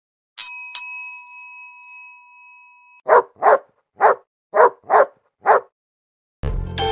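A bell-like chime struck twice in quick succession and ringing on, then a dog barking six times in short, evenly spaced barks. Music starts near the end.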